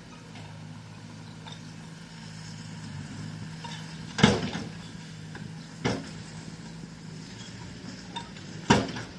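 Bulldozer engine running steadily, with three loud metallic clanks a little under halfway in, about a second and a half later, and near the end.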